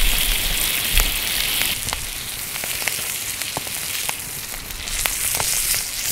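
Meat sizzling on small iron griddle plates over a wood fire: a steady hiss, strongest for the first couple of seconds and then easing, dotted with short sharp clicks and pops.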